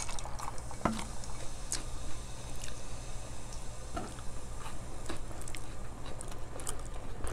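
Chewing and eating sounds of people eating a rice meal with their hands, with a few light clicks and taps scattered through.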